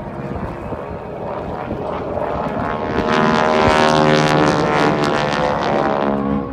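Propeller aircraft's piston engine during an aerobatic pass, growing louder to a peak from about three to six seconds in, then dropping away.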